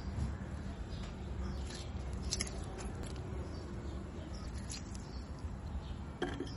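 Sealed glass canning jars being handled, giving a few faint clicks and then a brief knock about six seconds in as a jar is set back down on the wooden table, over a steady low rumble.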